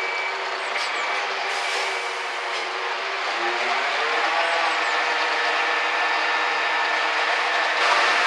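Concrete mixer truck's diesel engine running, with a high beep repeating about once a second for the first two seconds. The engine note rises about three and a half seconds in, and a short hiss comes near the end.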